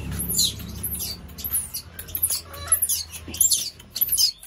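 Baby macaque crying: a quick run of shrill squeals, each falling in pitch, two or three a second.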